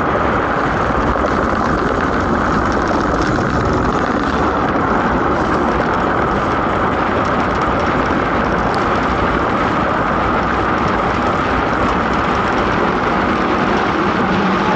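DN ice boat sailing at speed: a loud, steady rush of wind and the steel runners hissing over the ice.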